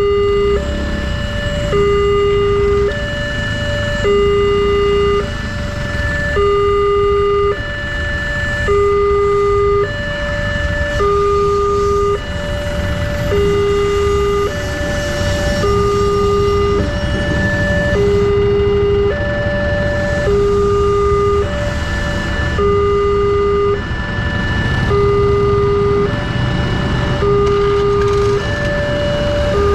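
Wantech railway level-crossing warning alarm sounding, an electronic two-tone signal with a lower and a higher tone alternating steadily, the lower tone louder; it warns that a train is approaching and the barriers are down. Motorcycle engines idle underneath as a low rumble.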